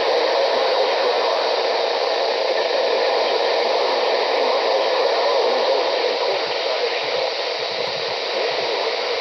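Weather radio receiver hissing with steady static, the broadcast voice lost under the noise as the signal drops out.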